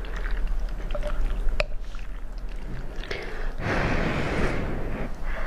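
Chopsticks clicking lightly against a porcelain bowl as a clump of noodles is lifted out, then about a second of breath blowing on the hot noodles.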